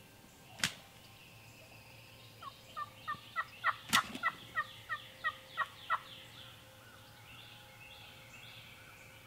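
Wild turkey calling: a run of about a dozen quick, evenly spaced notes, roughly three to four a second, lasting about three and a half seconds. There is a sharp click just before it and another in the middle of the run.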